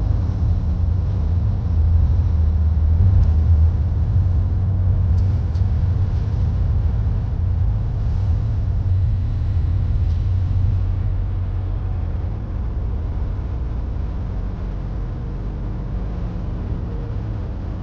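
Steady low rumble of road and engine noise inside a car's cabin at highway speed, easing a little over the last few seconds.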